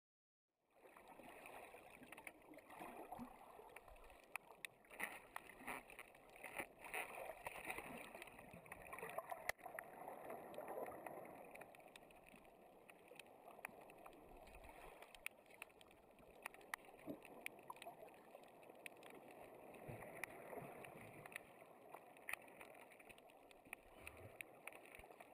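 Faint underwater sound picked up by a camera on a reef: a steady hiss with many scattered clicks and crackles, starting abruptly just under a second in.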